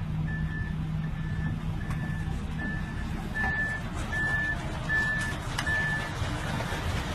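Heavy machine's reversing alarm beeping steadily, about one beep every 0.7 seconds, over a diesel engine rumble. The beeps grow louder toward the middle and fade slightly near the end.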